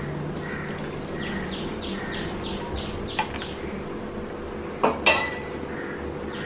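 Hot soup being poured from a metal pot into a bowl, followed by a few sharp clinks of the vessels touching about five seconds in. A bird chirps quickly in the background.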